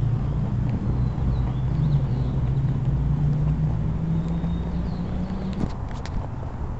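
Motorhome engine running as it drives slowly, its pitch rising gradually and then dropping off about five and a half seconds in.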